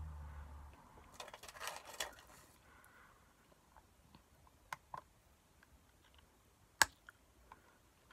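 Quiet, scattered clicks and taps on a Chromebook laptop's keyboard and trackpad: a short run of taps about a second in, then a few single clicks, the sharpest near the end.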